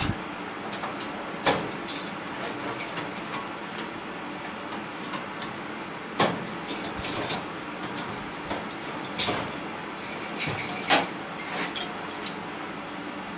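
Metal clicks and clinks from an adjustable wrench bending the copper tube ends of an air-conditioner A-frame coil back and forth to break them off. Four sharper knocks or snaps stand out, spread through the stretch.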